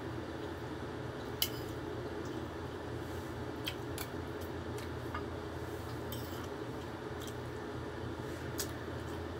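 A spoon clinks lightly against a dish about five times while someone eats, the sharpest click about a second and a half in. A steady low hum runs underneath.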